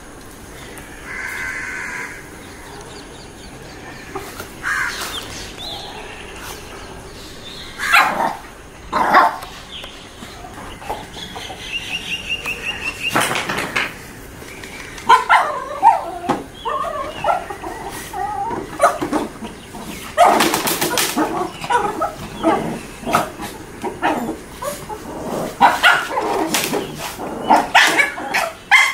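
Shih Tzu puppies about 40 days old yipping and giving small barks as they play-fight. The short calls come now and then at first, then thick and fast through the second half.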